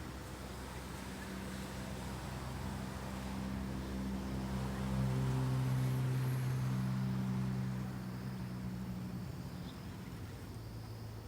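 A motor engine passing by, its steady low hum growing louder to a peak about halfway through, then fading and settling a little lower in pitch.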